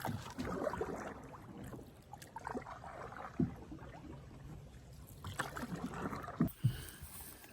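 Canoe being paddled: water swishing with irregular light knocks and a few dull thumps on the hull.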